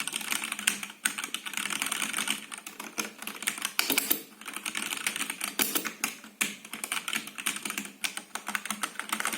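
Fast typing on an all-plastic Mucai 61-key mechanical keyboard with red switches: a dense run of key clicks in bursts, with brief gaps between them.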